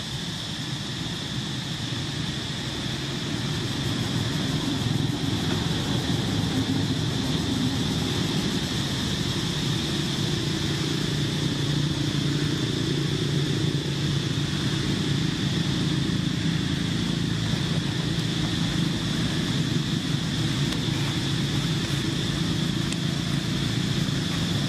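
A steady low engine-like hum, as of a motor vehicle running nearby, with a steady high-pitched tone above it. It grows louder a few seconds in.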